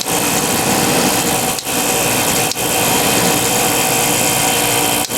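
Whirlpool 10,000 BTU window air conditioner running, its compressor making a loud, harsh, angry-sounding steady buzz with many fixed tones. The sound dips very briefly three or four times.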